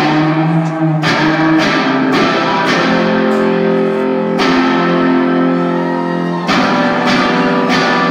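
Live rock band playing, recorded loud from the audience: electric guitar chords ring over a steady beat, with one chord held for about two seconds past the middle.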